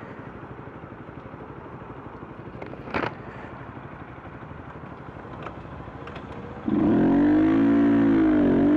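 Motorcycle engine running low and steady, with a short clack about three seconds in; near the end the throttle opens and the engine gets suddenly loud, revving up, dipping briefly and climbing again as the bike accelerates.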